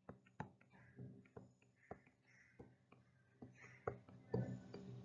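Faint taps and soft scratches of a stylus handwriting on a tablet, with a dozen or so light ticks and brief strokes that grow a little busier near the end.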